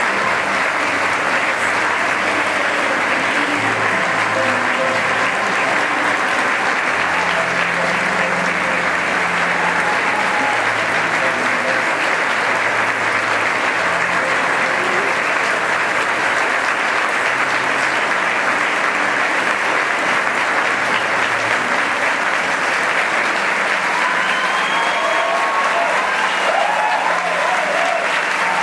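Large audience applauding steadily over music with a low bass line; a faint voice is heard near the end.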